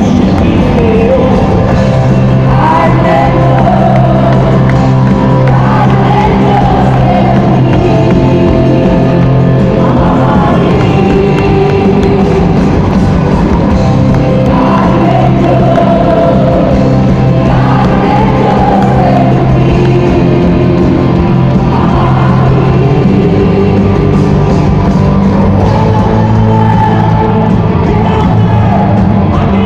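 Live rock band with a lead singer: steady bass and accompaniment under a sung melody that comes in phrases every few seconds.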